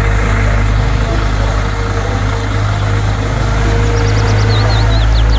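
Diesel engine of a Caterpillar M313C wheeled excavator running steadily with a deep hum as the machine digs sand and swings its loaded bucket.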